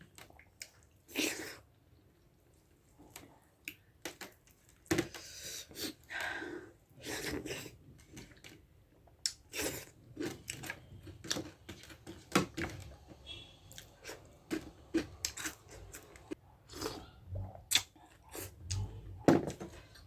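Close-miked eating sounds of a person chewing soft food, with irregular wet smacks and clicks of the mouth.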